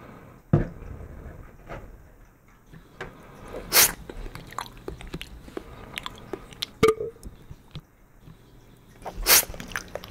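Metal fork and knife working a squishy foam toy cake on a ceramic plate: scattered light clicks and taps, with four louder short noisy bursts spread through, roughly three seconds apart.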